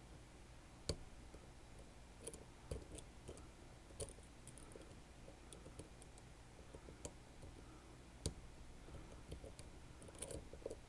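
Faint, irregular small metallic clicks and taps of lock-picking tools working in a Sargent Keso lock, a few sharper clicks standing out at uneven intervals.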